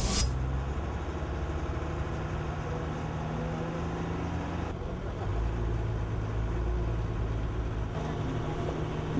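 A motor vehicle's engine running steadily, a low rumble. The sound shifts a little about halfway through and again near the end.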